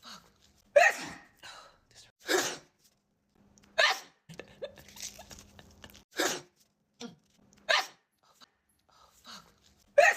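A woman sneezing over and over in a sneezing fit: about five sharp sneezes, one every one and a half to two and a half seconds, with a faint steady hum between some of them.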